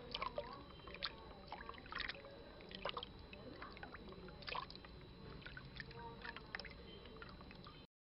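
Water gurgling and lapping, with scattered short clicks and squeaks over it; the sound cuts off abruptly near the end.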